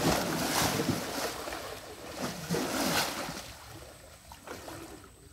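Water sloshing and splashing around legs wading through knee-deep river water. The sound is strongest for the first few seconds, then fades.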